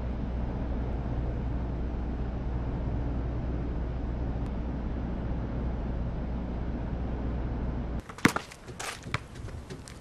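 A steady low hum for about eight seconds. It gives way abruptly to a few sharp, separate knocks of a basketball bouncing on an outdoor concrete court.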